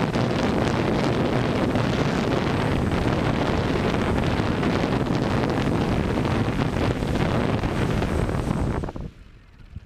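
DJI F550 hexacopter's brushless motors and propellers running, heard from its onboard camera with heavy prop-wash wind on the microphone and a faint thin high whine, as it sets down on grass. The sound cuts off sharply about nine seconds in, as the motors stop after landing.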